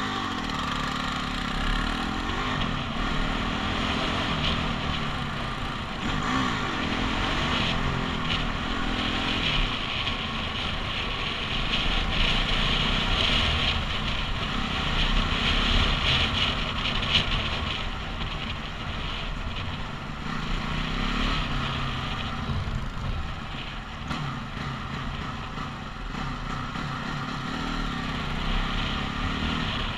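Dirt bike engine running on the move, its pitch rising and falling repeatedly as the throttle opens and closes, over a steady rushing noise.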